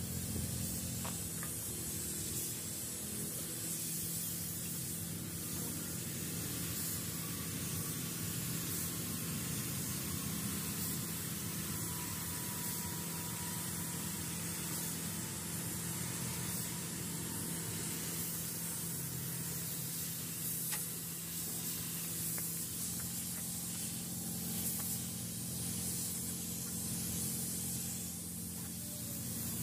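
Gravity-feed compressed-air paint spray gun hissing steadily as paint is sprayed, over a steady low hum.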